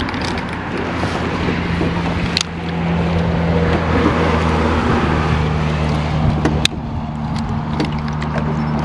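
Boat motor running steadily as the boat pulls away from the shore, its hum stepping up in pitch a couple of times, over water and wind noise, with two sharp clicks.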